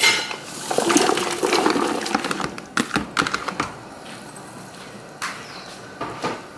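Chopped pumpkin and papaya pieces tumbling from a bowl into a big aluminium pot of water, splashing and clattering for about three and a half seconds, followed by a few light knocks.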